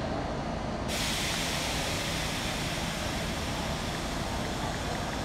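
A subway train standing at the station platform, giving a steady hiss over a low rumble, with a higher hiss joining about a second in.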